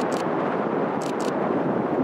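Steady rushing wind noise on the microphone, with a pair of short, high-pitched chirps about a second in.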